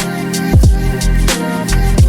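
Background music with a steady beat: a hip-hop style track with deep, falling bass drum hits and sustained synth notes.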